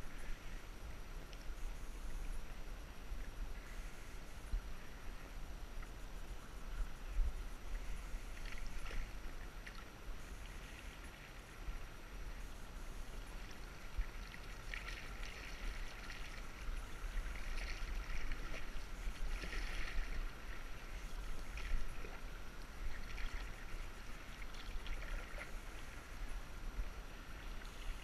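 Water rippling and splashing around a canoe as it moves through shallow river riffles, with a low rumble on the microphone throughout and irregular louder splashy patches through the middle of the stretch.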